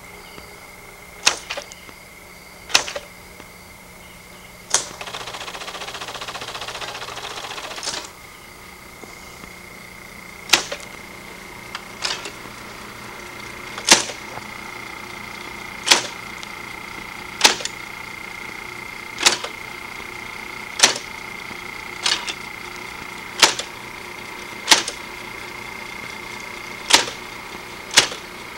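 Typewriter keys struck slowly, one at a time, with a sharp clack about every second and a half. A stretch of hissing noise runs from about five to eight seconds in.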